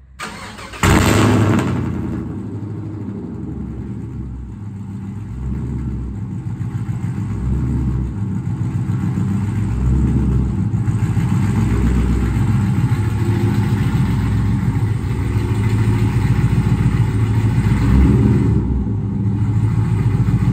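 Cold start of a crew-cab pickup's engine fitted with long-tube headers and a straight-pipe exhaust: a brief crank, a loud flare as it catches about a second in, then a loud, steady idle.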